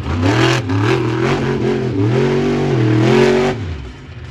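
Monster truck engine revving hard, its pitch rising and falling several times in quick succession, then dropping away about three and a half seconds in.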